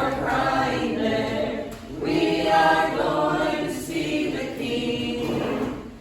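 Choir singing in long, sustained phrases, with a short break about two seconds in and another near the end.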